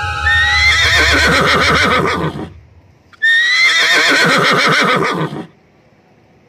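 Horse whinnying twice, the same call repeated after a short gap. Each call lasts about two seconds, starting with a high rising squeal and then shaking downward in pitch.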